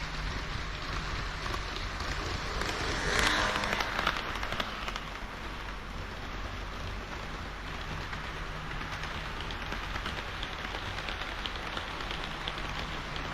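HO-scale model train running on the layout track: a steady rushing clatter of wheels on rail with a low steady hum underneath. The clatter swells for about a second around three seconds in.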